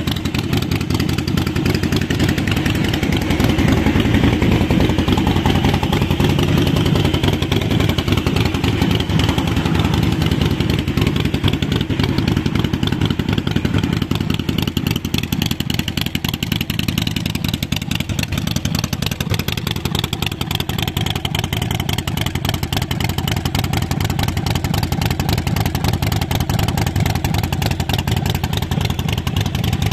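Harley-Davidson Forty Eight's air-cooled 1200 cc V-twin idling steadily through Vance & Hines Short Shots exhaust.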